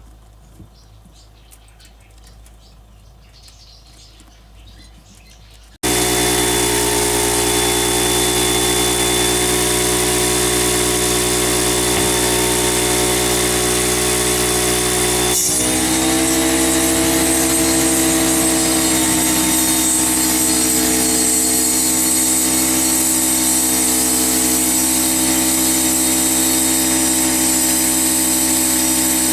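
Air compressor running steadily and loudly, feeding air into a lawn-tractor tyre whose bead is being popped onto the rim with ignited brake-cleaner spray. About halfway through there is one short sharp sound where the vapour is lit, and the compressor's note shifts slightly after it. The first few seconds hold only quiet handling noises before the compressor starts abruptly.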